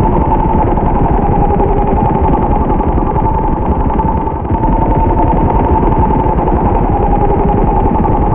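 Electronic soundscape: a dense, rumbling noise texture under a steady held tone, dipping briefly about four seconds in.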